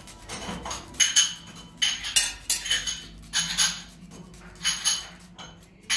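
Handheld truffle slicer shaving a truffle over a plate of pasta: a series of short metallic scraping strokes, about six at irregular intervals, some with a faint ring.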